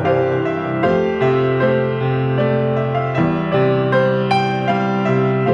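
Keyboard instrumental interlude of a hymn tune, held chords changing every second or so between sung verses.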